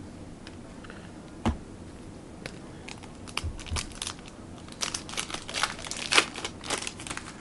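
A card pack wrapper being torn open and crinkled, with a single knock about a second and a half in. The crinkling starts sparse and grows dense over the second half.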